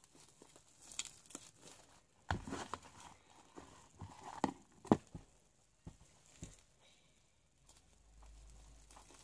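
White shaving-foam slime being kneaded and scraped off the sides of a plastic tub: irregular soft crackles and sticky clicks, thickest about two to five seconds in.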